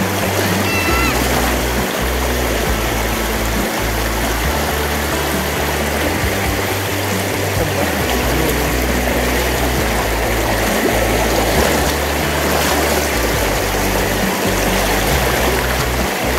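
Background music with a stepping bass line, over the steady rush of a shallow stream flowing over rock.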